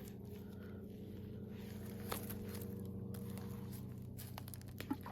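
Steady low engine drone from a motor running at an even speed, with a sharp click about two seconds in and another near the end.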